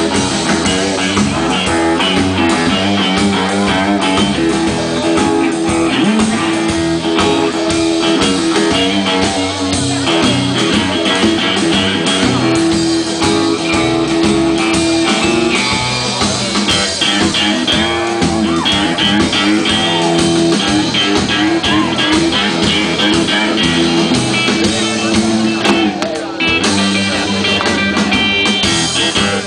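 Blues-rock band playing live: electric guitars over drums in an instrumental stretch with no singing.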